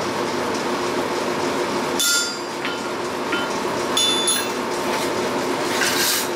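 Steel ringing against the anvil twice, about two and four seconds in: sharp metallic clinks from the cutlass blade and hammer on the anvil, each with a ringing tone. Under it a steady roar, the lit gas forge running, and near the end a short rubbing scrape begins as a wooden block is worked along the blade.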